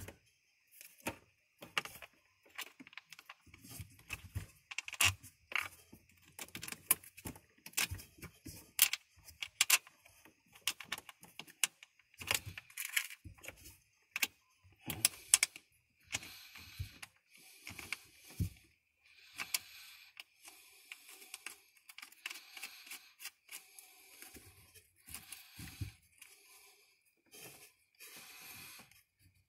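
Irregular sharp metal clicks and clinks from tools and hardware being worked on a battery terminal as a cable is fastened to the positive post, with a denser run of clicking about halfway through.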